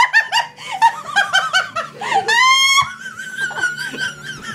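A woman laughing hard in rapid bursts that rise to a high shriek about two seconds in, then turn into a long, high-pitched squeal.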